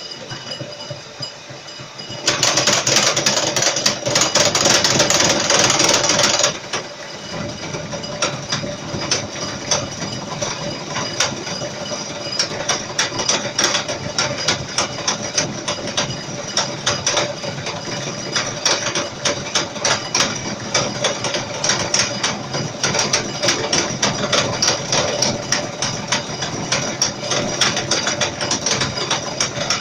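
End mill cutting the face of a round bar-weight blank turning on a rotary table: a steady machine tone under a dense, rapid rattle of cutter clatter. It is loudest for about four seconds starting about two seconds in, then settles into a steadier cutting rattle.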